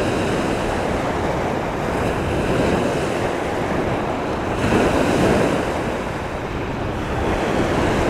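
Strong wind buffeting the microphone, a steady rushing noise mixed with surf breaking on the shore, gusting louder for a moment about five seconds in.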